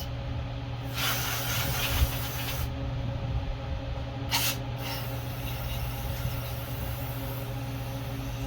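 Compressed air hissing in short blasts into a carburetor jet to blow it clear: a blast of nearly two seconds about a second in, then a short one at about four and a half seconds. A steady electric fan hum runs underneath.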